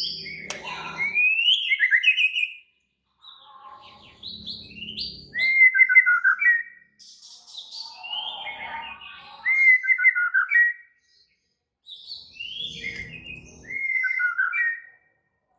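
White-rumped shama (murai batu) singing agitated, aggressive song: phrases of quick gliding whistles and chirps, each a few seconds long, with short pauses between them. This is the kind of song used as a 'pancingan' to provoke other shamas into singing.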